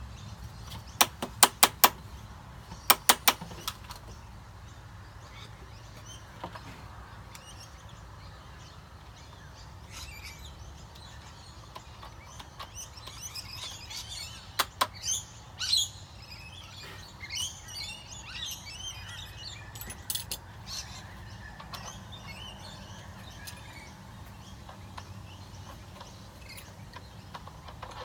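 Small birds chirping in the background over a steady low hum, with two quick runs of sharp clicks or taps near the start and a few single knocks later.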